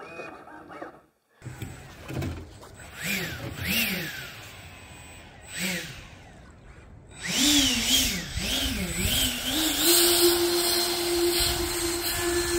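Electric ducted fan on an RC jet boat spinning up and down in a series of short throttle blips, each a rising-and-falling whine, then holding a steady whine for the last few seconds on a new high-voltage boat ESC.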